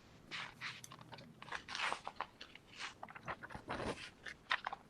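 Irregular crunching and rustling noises, a quick string of short crackles with no speech.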